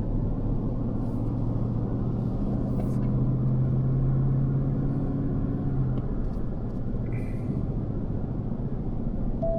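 Car engine and road rumble heard from inside the cabin, the car climbing a steep, winding mountain road; the engine note rises a little under load, then drops back about six seconds in.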